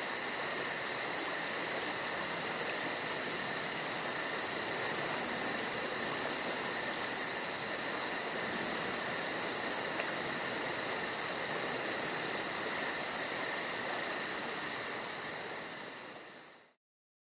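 Cicada singing: a continuous shrill buzz with a fast, even pulsing. It fades over the last second or two and then stops abruptly.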